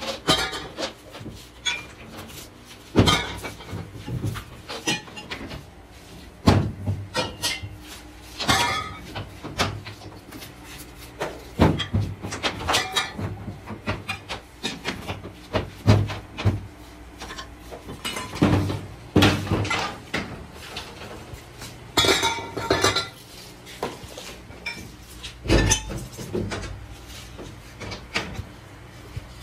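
Workshop clatter: irregular clanks and knocks of rubber hoses and hand tools being handled on a metal-topped work table, over a low steady hum.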